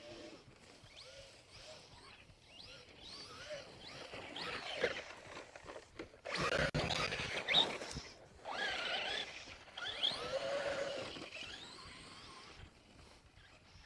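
Electric motor whine of a Traxxas Rustler RC truck, rising and falling in pitch as the throttle is worked while it drives over dirt and grass. It is louder in two stretches through the middle.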